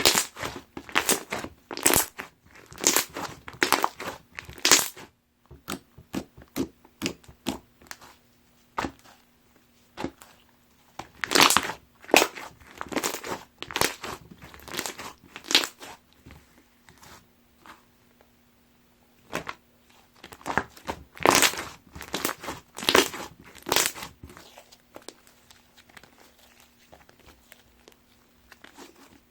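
Chocolate pudding slime being squished and poked by hand, giving off crackling, popping clicks as air pockets burst. The clicks come in three dense runs of a few seconds each, with sparser, quieter pops in between and near the end.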